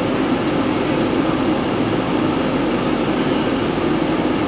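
Steady, loud machine noise in the vault, an even rushing rumble with no beats or breaks, like a running blower or other equipment.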